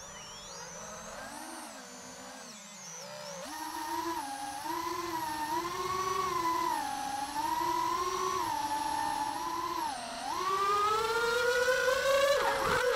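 Brushless motors of a 4-inch Quattro Beast FPV quadcopter whining. The pitch rises and falls with the throttle: low and soft at first, then a jump in pitch and loudness about three and a half seconds in as it takes off and flies. Near the end the whine climbs steadily as the quad speeds up on the run-in to a high-speed crash test.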